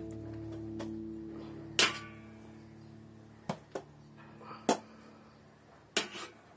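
A plucked guitar chord fading out, then several sharp metallic knocks and clinks of stainless steel bowls. The loudest knock comes about two seconds in, with a brief ring.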